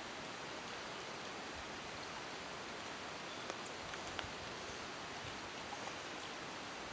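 Steady rush of a flowing river, with a few faint short clicks over the water noise about halfway through.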